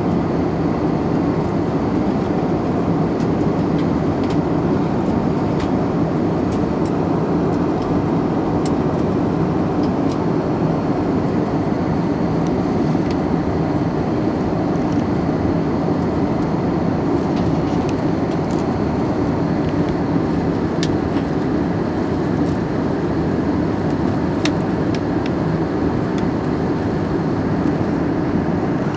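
Steady cabin noise of an Airbus A321 in cruise: the even rush of engines and airflow inside the cabin, with a few faint ticks.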